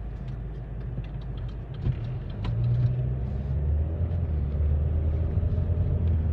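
Car engine and road rumble heard from inside the cabin: a low, steady rumble while stopped, then louder and deeper from about two seconds in as the car pulls away from the light and speeds up.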